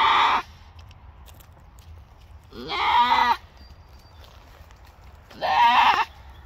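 Boer–pygmy cross doe bleating loudly in labor as she pushes out her first kid. There are three strained cries about three seconds apart, the first dying away just after the start.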